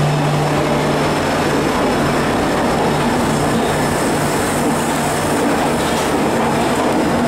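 Rajdhani Express LHB passenger coaches rolling past a station platform as the train draws in, with the steady running noise of wheels on rail. A low steady hum is strong for about the first two seconds and then breaks up.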